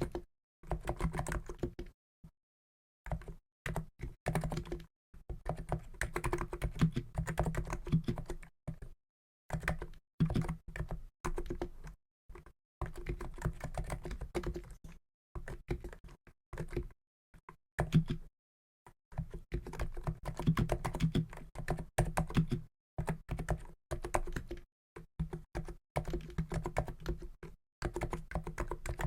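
Typing on a COX Endeavour keyboard with 50 g Niz electro-capacitive switches: rapid runs of muted, thocky keystrokes, broken every few seconds by short pauses.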